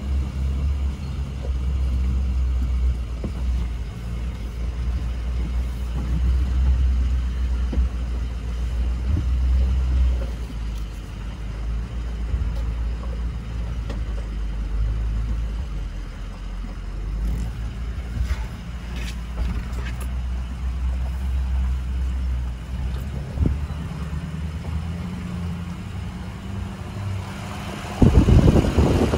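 Pickup truck carrying a truck camper crawling in four-wheel drive over a rough, rocky dirt track, heard from inside the cab: a steady low engine drone with a few knocks. Near the end a sudden loud rush of wind noise hits the microphone.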